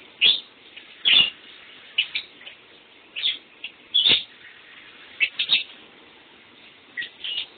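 Lovebird chirping: about ten short, sharp calls, some coming in quick pairs, spread unevenly across the stretch.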